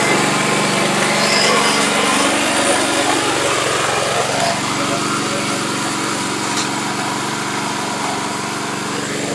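Small engine of a remote-controlled, self-propelled flail mower running steadily while the machine is driven and mowing.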